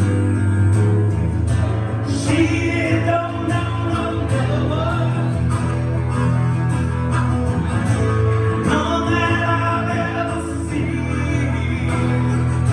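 Live music: a guitar-backed rock ballad played through a passage between sung lyrics, with a sustained bass underneath and a melodic line that swells about two seconds in and again about nine seconds in.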